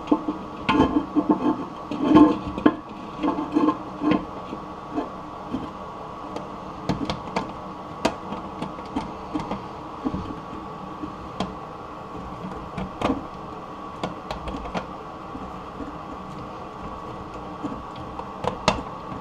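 Hand tools working on a toilet tank bolt: scattered metallic clicks and knocks of a wrench, screwdriver and vise grips turning and holding the bolt, busier in the first few seconds. A faint steady hum runs underneath.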